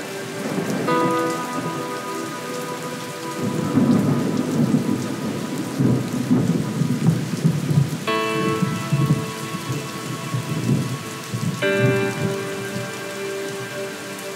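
Recorded rain and rolling thunder under sustained synthesizer chords. The thunder rumbles loudest through the middle. The chords change about a second in, about eight seconds in, and again near the end.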